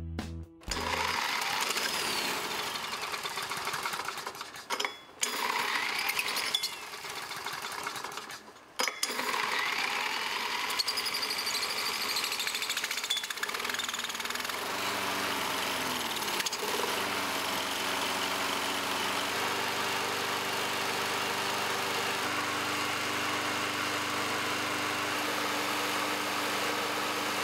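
Small carbureted engine with a see-through cylinder head running on jet fuel (mostly kerosene), with a fast, even clatter. The owner thinks it is likely running a little lean on it. The sound breaks off briefly twice a few seconds in, its pitch wavers about halfway through, and then it runs steadily.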